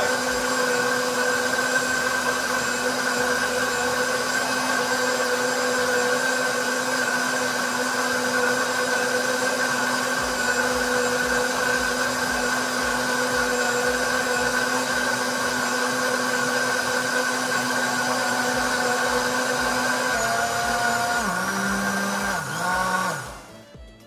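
Britânia BLQ1280P 1150-watt blender running continuously at a steady speed, blending pineapple juice in its jar. About 20 seconds in the motor is switched off, and its whine falls in pitch as it winds down to a stop.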